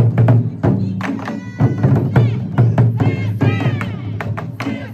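Ensemble taiko drums struck in a rapid rhythm, deep booming strokes mixed with sharper hits, with voices calling out over the drumming about midway through.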